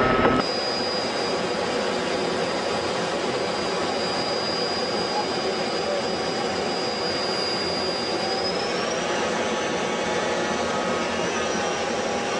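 Steady rushing drone of a turbine aircraft engine with a thin high whine that steps up slightly in pitch about eight and a half seconds in.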